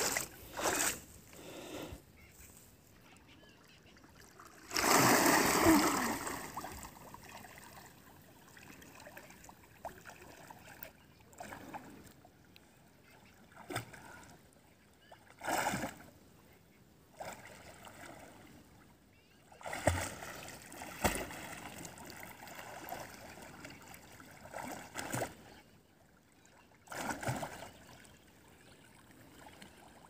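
Water splashing as a swimmer wades in and plunges into a river, with one big splash about five seconds in. Shorter, irregular splashes of slow swimming strokes follow.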